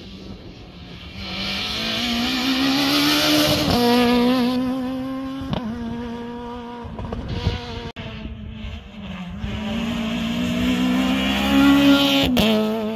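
Rally car engines under full throttle, the revs climbing and then dropping sharply at each upshift, three times in all, with tyre noise. Near the end a Peugeot 208 rally car passes close by, the loudest moment.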